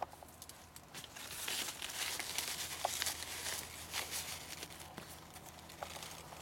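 Dry corn leaves and stalks rustling and crackling at close range as a buck moves in against a gloved hand. The rustle builds about a second in, is loudest in the middle and eases toward the end, with scattered small clicks.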